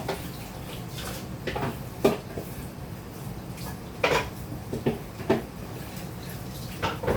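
Cookware being handled: a pot, its lid and utensils clink and knock in irregular sharp strikes, the loudest about two seconds in, over a steady low hum.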